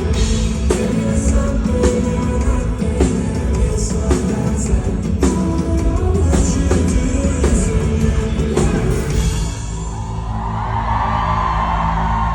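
Live pop-rock band music heard from within the concert audience, with regular drum hits driving the song. About nine and a half seconds in, the drums stop and a held, sustained sound carries on.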